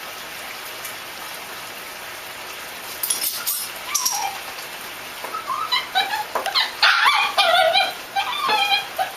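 A dog whining and yipping in a quick run of short, high calls that begins about halfway through and carries on, with a single falling whine shortly before.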